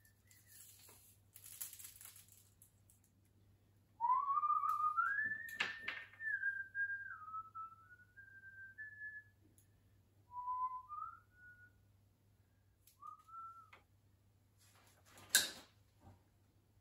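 Someone whistling a tune in short stepped phrases, starting about four seconds in. There is handling noise in between and one sharp click near the end.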